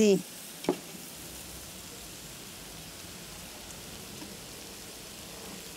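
Steady low hiss of room noise with a faint hum, and a single short click just under a second in.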